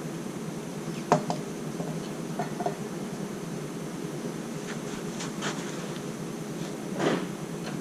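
A steady buzzing hum with a few light clicks and knocks, a sharp click about a second in and a broader knock near the end.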